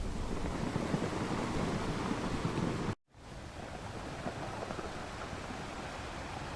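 Ocean surf washing on the shore, cut off abruptly about three seconds in by a brief dropout to silence, then a steadier, quieter rushing hiss.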